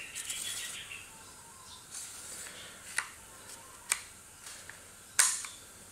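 Inner magazine tube of a Winchester Model 150 .22 lever rifle being handled in its outer tube: faint metal sliding and scraping, two light clicks about three and four seconds in, and a sharper click about five seconds in.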